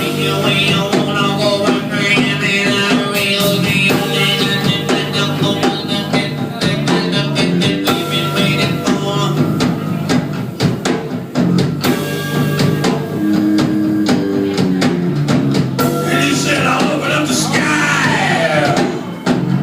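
Band music without lyrics: drum kit and guitar playing a soul-rock groove. A lead line swoops up and down in pitch near the end.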